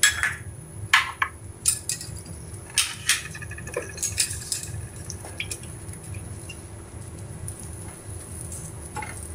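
A spoon clinking and knocking against a bowl and a kadai, about five sharp strikes in the first three seconds as green chillies go into the oil, then quieter with a steady low hum and light stirring near the end.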